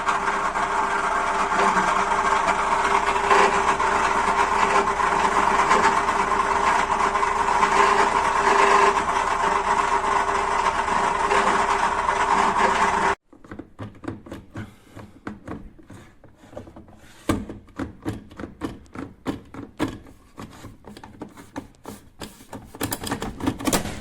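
Washing machine running with a steady hum and whine that cuts off suddenly about halfway through, followed by a string of irregular clicks and knocks.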